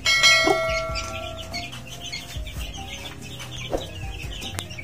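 Young chicks peeping throughout, with a few lower clucking calls. A ringing, bell-like chime sounds at the start and fades over about a second and a half.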